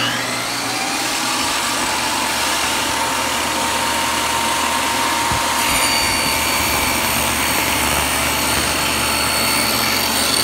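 Table saw motor running, its whine rising briefly in the first second or two as it comes up to speed, then steady; from about halfway through, the blade rips a cedar shingle lengthwise.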